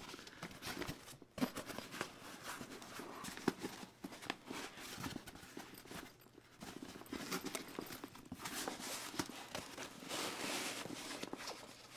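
A stiff panel sliding down into a soft-sided nylon cooler bag, with fabric rustling and scraping and irregular light knocks as the bag is handled.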